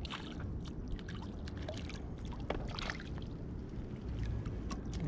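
Water splashing and dripping as a small fish is netted and the landing net is lifted out of the water, with many short splashes and drips over a steady low rumble.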